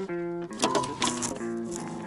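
Background music of plucked guitar notes.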